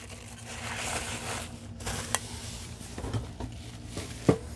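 Packing material rustling and crinkling as a boxed nonstick pan is unwrapped, followed by a sharp click and a few light taps and knocks.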